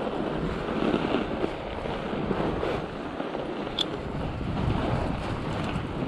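Fat bike's wide tyres rolling through snow on a ride, with wind noise on the microphone and a single sharp click about two-thirds of the way through.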